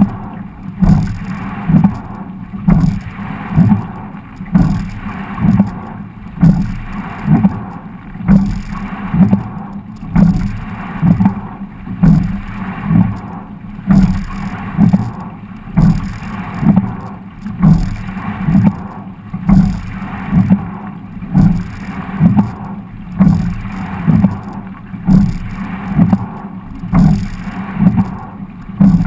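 Quad sculling boat being rowed: a regular rhythm of low thuds, about one a second, from the oars and rigging knocking through the hull. Water rushes and splashes past the hull between them.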